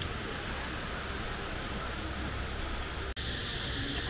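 Steady, even hiss of outdoor ambience. About three seconds in there is an abrupt cut, after which the high part of the hiss is weaker.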